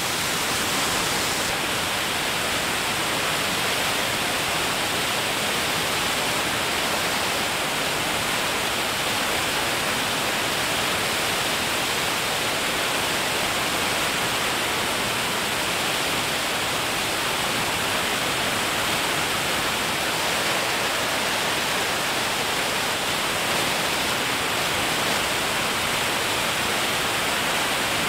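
Steady, even hiss with no engine note, tones or separate events, strongest in the upper-middle range and unchanging throughout.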